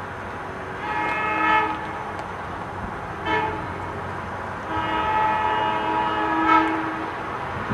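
SEPTA commuter train's horn sounding as the train approaches: a long blast, a short one, then another long blast, over distant train running noise.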